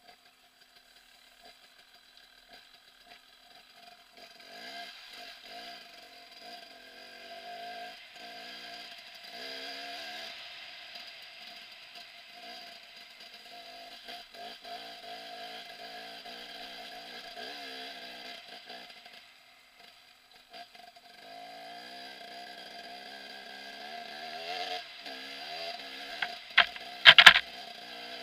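KTM 300 EXC two-stroke enduro motorcycle engine being ridden off-road, its pitch rising and falling with the throttle. It is faint at first, comes in after about four seconds, and drops away briefly about two-thirds through. A few loud knocks come shortly before the end.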